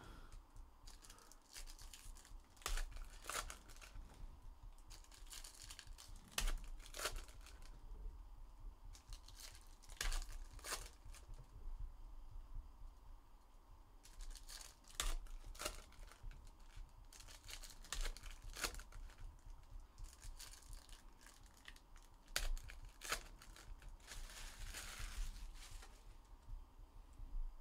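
Foil trading-card packs being torn open and their wrappers crinkled by hand: faint, irregular crackles and rustles.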